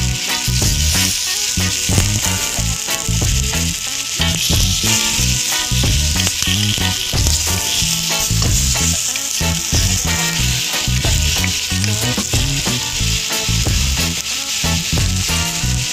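Chicken pieces sizzling steadily in hot oil in a wok, stirred now and then with a wooden spatula, with background music underneath.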